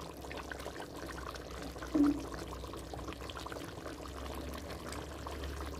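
Chicken karahi gravy simmering in a clay pot, bubbling with many small pops and crackles over a steady low hum. A short, louder low sound about two seconds in.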